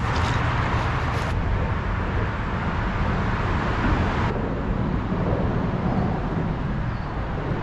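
Steady rumble of road traffic on the bridge overhead, with leaves rustling against the camera at the start.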